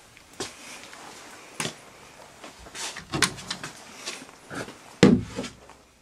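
Scattered wooden knocks and clatters of cupboards and drawers being handled, with a heavier thump about five seconds in.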